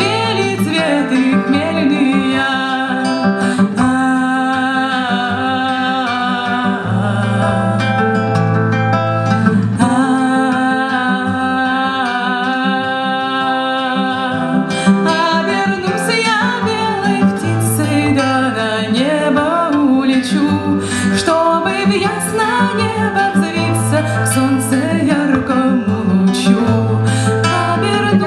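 A woman singing a slow Russian lullaby, accompanying herself on acoustic guitar.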